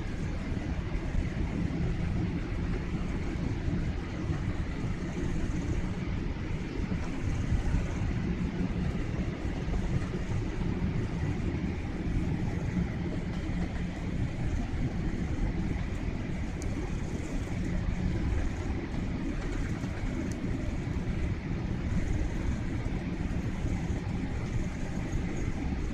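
Steady cabin noise of an airliner on descent before landing: a constant low rumble of engines and airflow heard from a window seat, with a faint steady whine above it.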